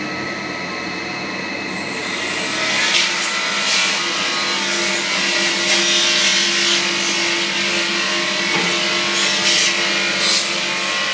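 Drum floor sander running with a steady motor whine. About two seconds in, a loud scraping hiss of abrasive on the parquet builds over the motor as the sanding drum bites into the wood.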